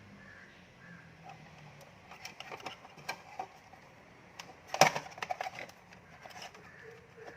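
Handling noises: scattered small clicks and knocks of hard objects being moved and set down, with the loudest a sharp clack followed by a quick run of clicks about five seconds in.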